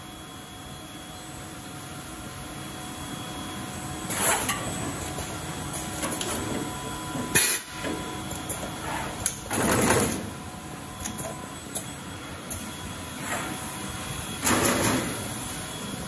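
Automatic wire-crimping machine running: a steady mechanical hum broken every few seconds by short, sharp hisses, the longest about ten seconds in.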